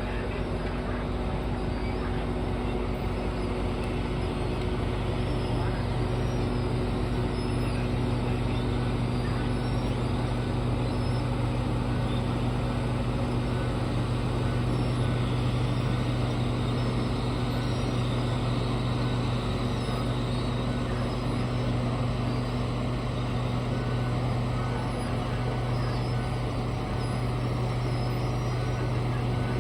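Large diesel engines of heavy mining machinery, a hydraulic excavator and haul truck, running steadily with a deep engine note that grows stronger about five seconds in.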